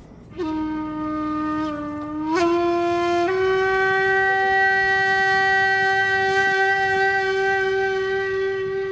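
A single long blown note from a horn-like wind instrument. It starts low, steps up in pitch a few times in the first three seconds, then holds one steady tone.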